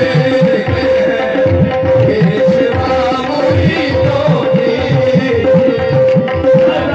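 Live qawwali accompaniment: a harmonium holds a steady note while a tabla plays a fast, even rhythm, some of its bass strokes curving in pitch.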